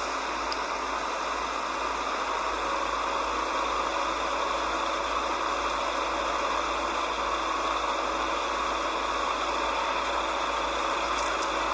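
A steady engine running, heard as an even, unchanging noise.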